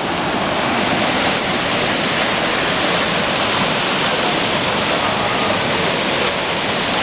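Small waterfall cascading over rocks into a pool, a steady, unbroken rush of water.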